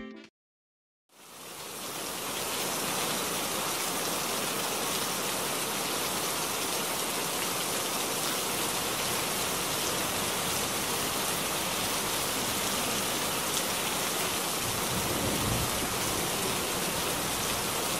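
Steady rain falling on paving and a pool, fading in about a second in after a brief silence.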